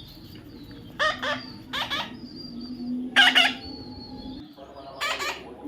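A young parrot squawking: four short, harsh calls, the loudest about three seconds in.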